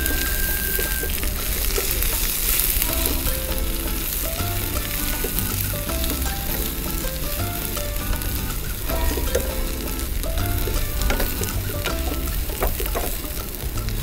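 Sliced leeks and dried shrimp sizzling in a frying pan as they are stir-fried with a spatula. Background music plays under it.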